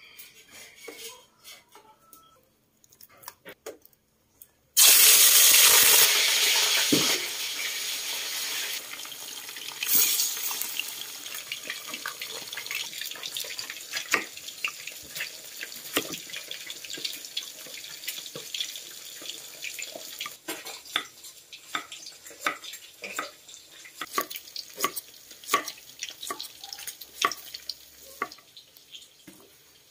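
A sudden loud hiss from a hot wok over a wood fire starts about five seconds in and fades over the next few seconds. Then a kitchen knife slices a pineapple against a wooden chopping board, making many short clicks over a soft continuing hiss.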